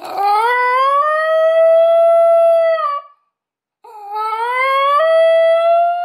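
Basenji giving its yodel-like howl instead of a bark: two long calls with a short pause between them, each starting lower, sliding up in pitch and then holding.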